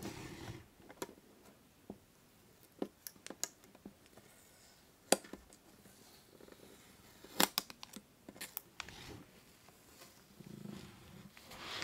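Fingers and fingernails handling a metal biscuit tin, giving scattered sharp clicks and taps on the tin, two of them louder about five and seven seconds in. Near the end comes the rasp of a paper seal sticker being peeled off the lid.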